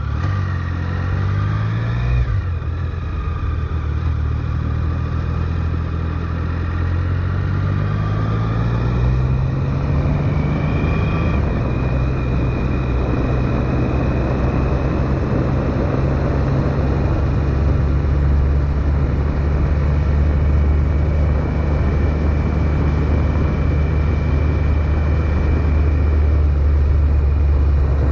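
Triumph Sprint GT's three-cylinder engine accelerating through the gears. Its pitch rises, drops at a gear change about two seconds in, climbs again until about twelve seconds, then holds steady at cruising speed under constant road and wind noise.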